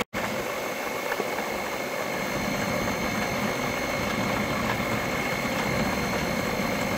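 Electric stand mixer running steadily, its wire whisk beating egg whites into meringue, a steady motor hum with a high whine.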